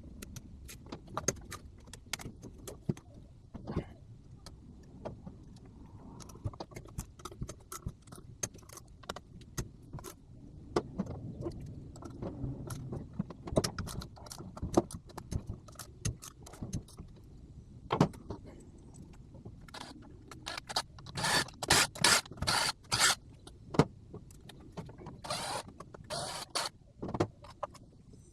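Irregular clicks, taps and clinks of hand tools and small metal parts as a 6L80 transmission control module (TEHCM) is taken apart, with denser runs of rattling clicks about twenty seconds in and a short rattle near the end.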